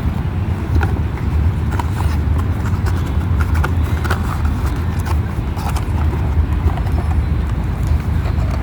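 Scattered small clicks and taps of a doll's plastic packaging and accessories being handled, over a steady low rumble.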